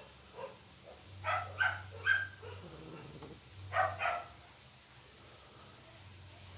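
Short, sharp animal calls: three in quick succession a little over a second in, then two more close together about four seconds in.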